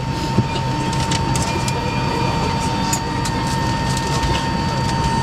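Airbus A319 cabin noise: a steady low hum with a constant high-pitched whine held at one pitch, and scattered light clicks and knocks.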